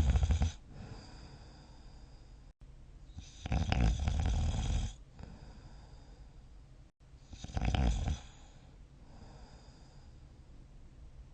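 A sleeping person snoring: one snore tails off at the start, then two more follow about four seconds apart, each about a second or two long, with quieter breathing between.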